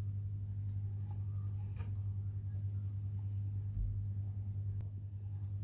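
A few light metallic clinks of cookware and utensils over a steady low hum.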